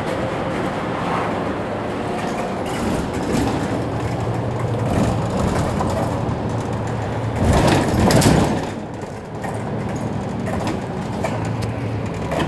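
Mercedes-Benz Citaro C2 city bus running, a steady low engine hum. About seven and a half seconds in there is a louder rush of noise lasting about a second, then a brief lull.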